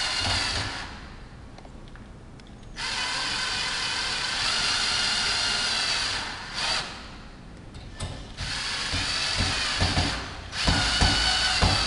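Power drill-driver driving the screws of a door handle's mounting plate, running in four main bursts of a second or a few seconds each with short pauses between. A few low knocks come in the second half.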